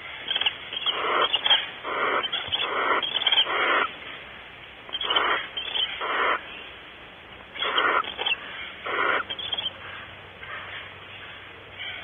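Barn owl giving a series of short, harsh hissing calls, each about half a second long, in irregular groups with pauses between them.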